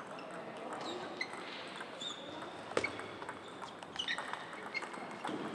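Table tennis balls clicking and pinging off tables and rackets, irregular light taps from several tables in play over a steady hall hiss, with one sharper click a little under three seconds in.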